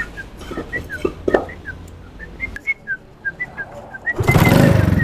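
A quick string of short whistled chirps, about four a second, alternating between two pitches with small downward slurs. About four seconds in, a much louder rumbling, pulsing noise cuts in.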